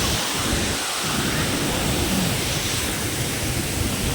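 Waterfall rushing in a steady, loud, even roar of falling water.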